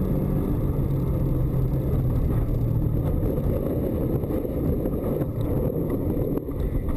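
Car's engine and tyre noise heard from inside the cabin, a loud steady low rumble while driving on a snowy road. Near the end the car slides off the road and ploughs into deep snow, with a brief dip in the rumble.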